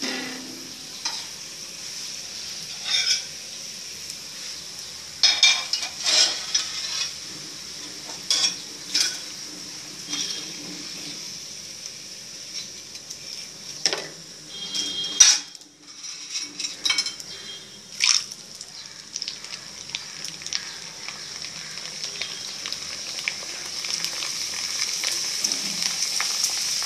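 Rice-flour chips deep-frying in hot oil in a wok: a steady sizzle, broken by a slotted spoon scraping and clinking against the pan a dozen or so times. The sizzle grows louder near the end as a full panful of chips froths in the oil.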